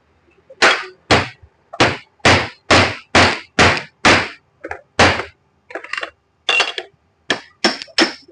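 Hammer blows on a car drive shaft, about two a second and about fifteen in all, as a new ball bearing is driven on. The strikes are heavy and even at first; after about five seconds they turn lighter and more clattering, and some ring briefly.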